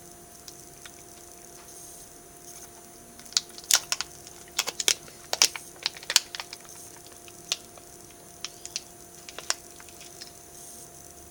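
Wet mouth clicks and smacks from chewing a sticky, gooey sweet bean jelly, coming in scattered clusters mostly through the middle, over a faint steady hum.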